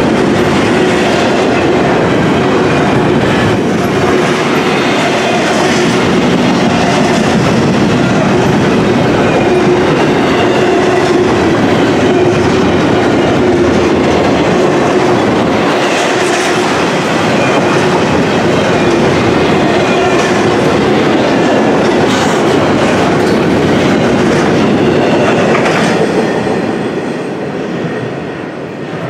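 Double-stack intermodal container well cars rolling past, a steady rumble of steel wheels on rail with clickety-clack over the rail joints. About 26 seconds in it grows quieter as the rear of the train moves away.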